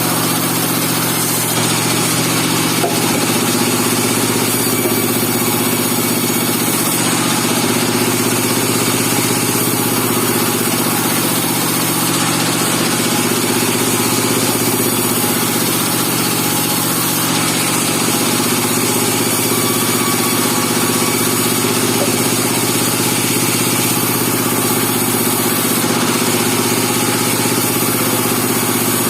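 Band sawmill running steadily: an engine hum with an even hiss over it, with no breaks or changes.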